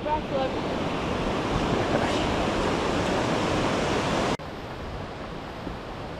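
Rushing mountain river tumbling over boulders: a steady, loud whitewater rush. About four seconds in it cuts off abruptly to a quieter, steady background hiss.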